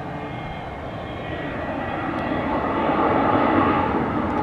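Turbofan engine of a BAE Hawk jet trainer on approach with its gear down: a steady jet rush that grows louder as the aircraft comes overhead.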